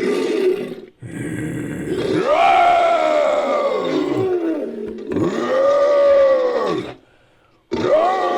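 Designed creature roar sound effect layered from big-cat and bear roars and a human voice: a growling call, then two long roars that rise and fall in pitch. A short pause, then another roar begins near the end.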